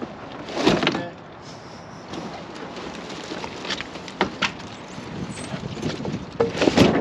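Knocks and scrapes from a large cardboard-boxed refrigerator being moved by hand, over a steady hiss. The loudest are about a second in and near the end.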